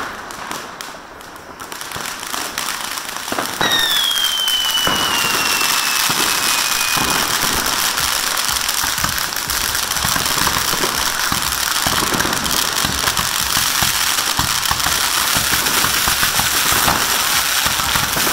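Firework fountain spraying sparks on the road: after a quieter few seconds it flares up loudly with a whistle that falls slowly in pitch, then keeps up a dense, steady crackle of many small pops.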